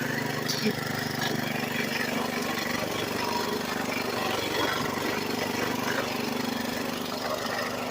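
MOZ-ALL mower's engine running steadily just after catching. A light, even knock can be heard with it, which the owner hopes is not the engine and puts down to the belt drive.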